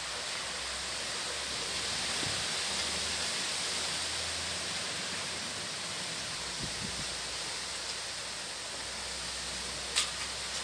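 Strong stormy wind rushing through trees, a steady hiss that swells a little in the first few seconds and then eases. A single short click near the end.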